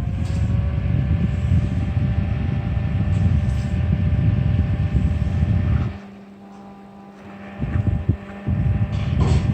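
Small cordless handheld fan running, its airflow buffeting the microphone as a loud low rumble, with a faint steady motor whine above it. About six seconds in the rumble drops away for about a second and a half, then comes back.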